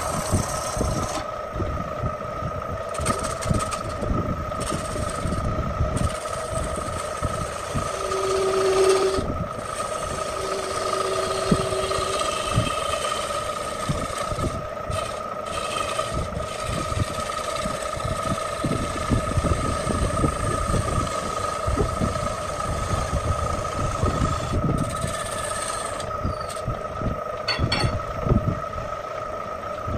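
Belt-driven wood lathe running with a steady motor hum, while a long turning tool cuts and scrapes the spinning wooden dish, giving an uneven rough grinding underneath.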